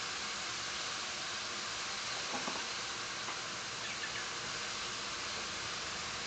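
Minced pork sizzling in a wok over a gas burner: a steady, even hiss.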